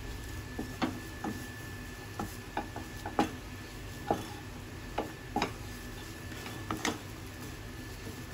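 Wooden spatula knocking and scraping against a non-stick pan while a thick potato dough is stirred and pressed, about a dozen irregular taps. The mixture is being cooked until it stiffens into a dough like vada batter.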